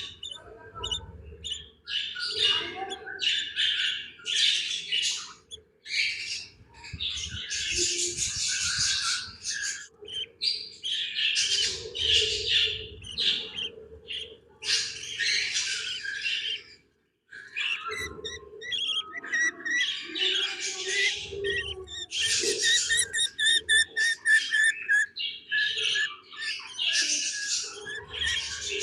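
Baby budgies (budgerigar chicks) chirping and squawking: harsh, raspy high-pitched calls in clusters of a second or two, with a brief pause about two-thirds of the way through.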